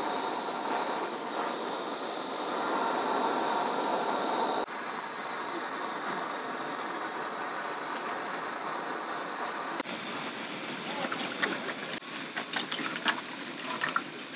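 Handheld gas cooking torch hissing steadily as its flame caramelises sugar on halved bananas, in two stretches split by an edit. Near the end, crackling and clicks as a bottled drink is poured over ice in a glass.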